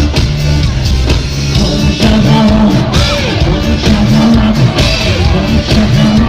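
Loud amplified music with a heavy bass beat and a singing voice over it, played through a concert sound system during a sound check.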